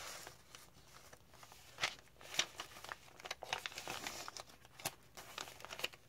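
Paper rustling and crinkling as the journal's pages and paper tags are handled and turned, with irregular small crackles.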